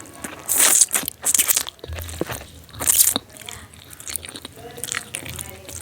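A person eating spicy instant noodles, close-miked: three loud, short bursts of eating noise about a second apart, with softer chewing between.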